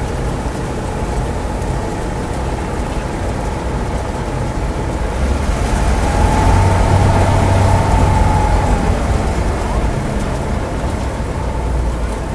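Combine harvester running with its unloading auger discharging harvested mustard seed, a steady low machine drone. It swells louder for a few seconds in the middle, with a faint whine over it.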